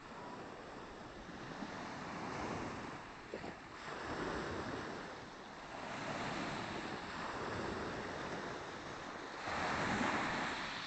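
Small waves of a calm sea washing onto a pebble beach, swelling and easing every few seconds, loudest near the end, with wind on the microphone.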